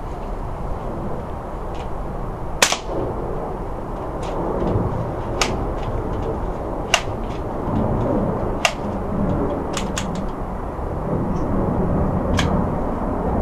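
Crosman M417 multi-pump .177 air rifle fired once, a sharp crack about two and a half seconds in. It is followed by a string of fainter, spaced clicks as the rifle is handled and pumped.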